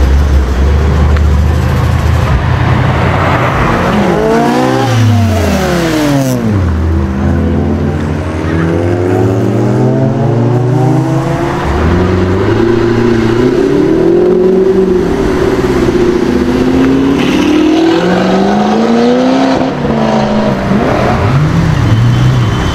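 Car engines revving and pulling away one after another, their pitch climbing and falling with each rev and gear change. The first few seconds hold a deep, steady rumble.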